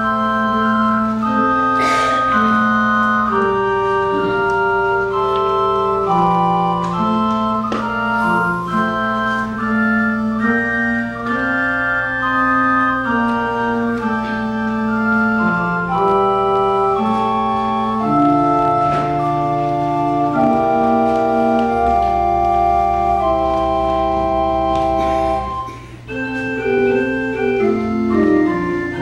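Organ music: slow, sustained chords moving step by step over a long-held bass note. It pauses briefly near the end before the next phrase begins.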